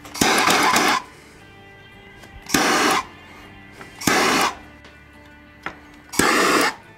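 Handheld gas torch fired in four short blasts of rushing flame noise, each under a second, heating the vinyl wrap so it conforms to the receiver.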